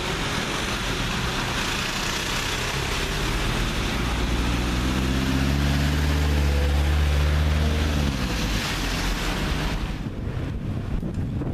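A panel van drives past close by on a wet road: its engine hum swells for about four seconds and bends down in pitch as it goes away, over a steady rushing hiss of wet road and wind noise. The hiss cuts off suddenly near the end.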